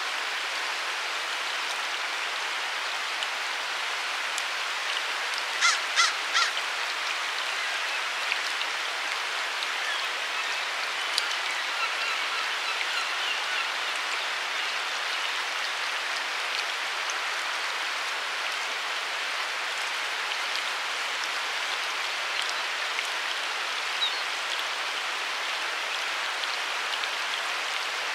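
Steady rush of flowing river water. About six seconds in, a bird gives three short calls in quick succession, and a few faint chirps follow later.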